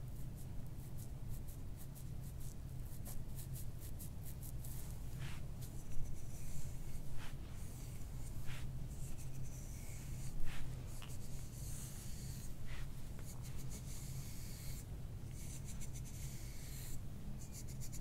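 A hand-held massage scraping tool rubbing over oiled skin and hair on the head and neck, in many short, scratchy strokes, sometimes quick and close together. A low steady hum runs underneath.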